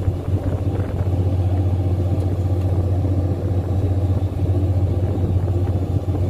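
Steady low drone of the fishing boat's engine running.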